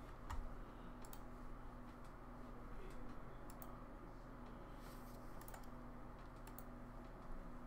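Scattered light clicks and taps on a computer keyboard and mouse over a low steady electrical hum.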